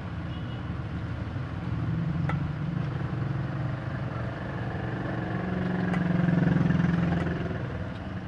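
An engine running, its hum swelling about two seconds in and again to its loudest about six and a half seconds in, then easing off.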